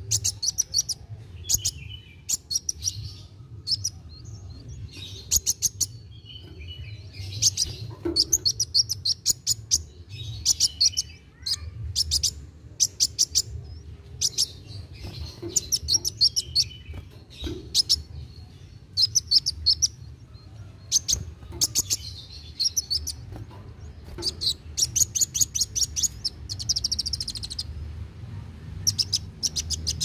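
Male Van Hasselt's sunbird (kolibri wulung) singing in full voice: a fast, high ticking chatter given in short rapid runs every second or two, with a steady low hum underneath.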